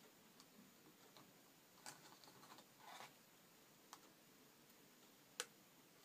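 Near silence broken by a few faint clicks of tweezers and small plastic model-kit parts being handled and fitted, with one sharper tick about five seconds in.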